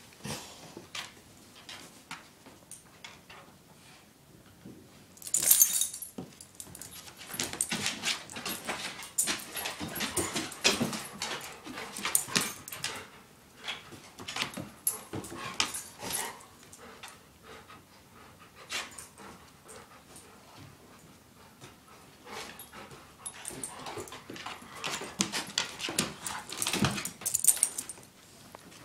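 Two dogs, an adult golden retriever and a puppy, playing and tussling, with short whines and growls in irregular bursts. There is a loud burst about five seconds in, and the play is busiest in the middle and again near the end.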